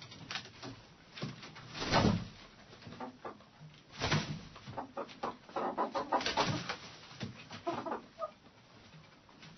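Hens clucking inside a hen house, a scatter of short calls and scratching clicks, busiest in the middle and quieter near the end.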